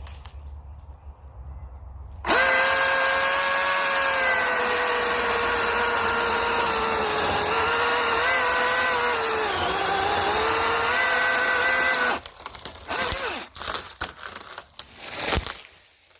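Milwaukee M18 16-inch battery chainsaw cutting into a sweet gum tree: the motor starts suddenly with a high steady whine that dips in pitch as the chain bogs in the cut, then cuts off about twelve seconds in. A run of cracks and thumps follows as the leaning tree gives way and splits.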